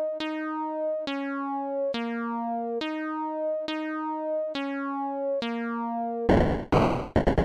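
Electronic synthesizer notes, each held for a little under a second, playing a short four-note phrase that steps down in pitch and then repeats. About six seconds in, this cuts to loud, choppy bursts of harsh noise that stutter on and off.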